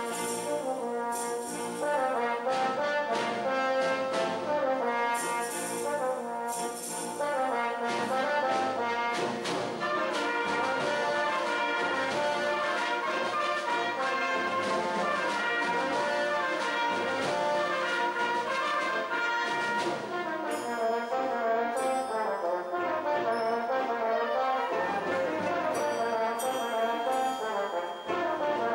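French horn playing a solo melody over a full wind band accompaniment.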